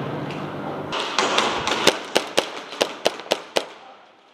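Airsoft gun firing single shots: about ten sharp cracks, roughly four a second, starting about a second in.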